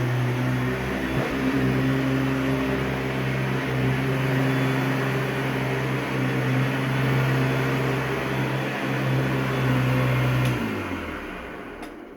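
Vintage Hoover upright vacuum cleaner fitted with a generic 11-blade motor fan, running with a smooth, steady hum, then switched off about ten and a half seconds in, its pitch falling as the motor winds down.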